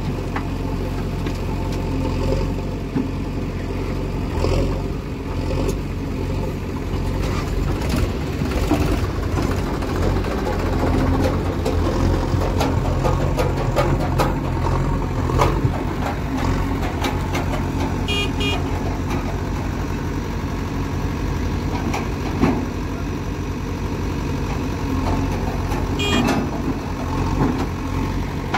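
The four-cylinder diesel engine of a JCB 3DX backhoe loader running steadily under load as the backhoe digs soil and swings to dump it, with scattered knocks and clatter from the bucket and falling earth.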